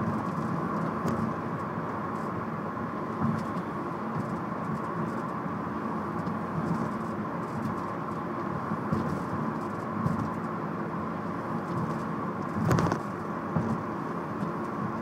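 Nissan Altima running with a steady hum, broken by a handful of irregular sharp taps, the loudest a little before the end: the annoying tapping noise the car has developed.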